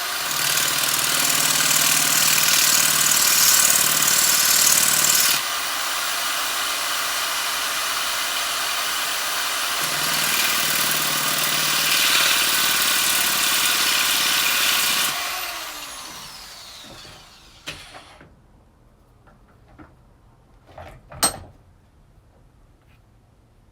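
A chainsaw run as a test after repair work. It runs loud and steady, drops back a little about five seconds in, comes up again, then is released and winds down with a falling pitch. A few light clicks follow, one sharp.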